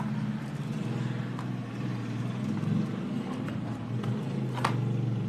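Light clicks of wooden craft sticks being handled and fitted together on a tabletop, with one sharper click near the end, over a steady low background hum.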